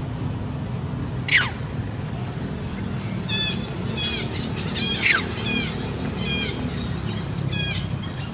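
High-pitched animal calls: two loud squeals falling steeply in pitch, about a second in and again about five seconds in, and between them a run of short repeated chirps, over a steady low hum.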